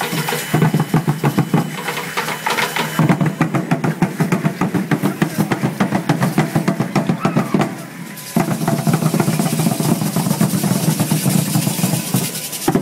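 Fast, steady drumming for an Aztec (danza azteca) dance, with a brief break about eight seconds in; the drumming stops abruptly at the end.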